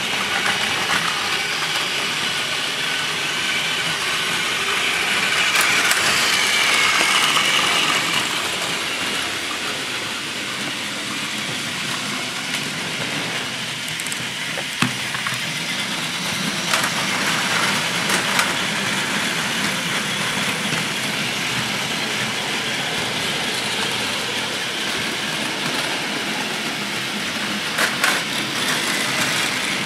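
Several battery-powered Plarail toy Shinkansen trains running together on blue plastic track: a steady whirring of their small motors and gears with wheels rattling over the track, and a few sharper clicks, one about halfway through and another near the end.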